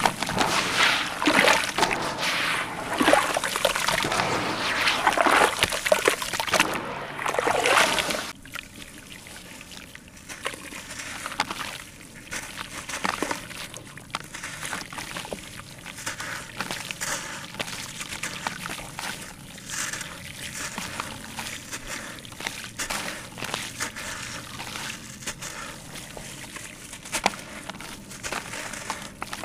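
Hands sloshing and squeezing gritty sand-cement slurry in a tub of water, with trickling and splashing that is busy and loud for the first eight seconds. After that, quieter crumbling of wet sand-cement lumps over the water, with many small scattered crackles.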